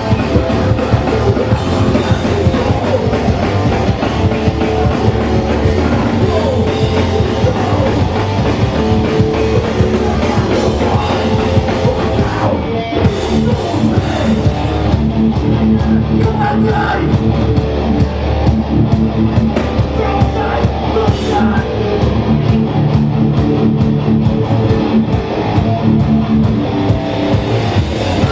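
Live hardcore punk band playing loud, with distorted electric guitars, bass, drum kit and shouted vocals; from about halfway through the cymbals drop back and the guitars ring on held notes.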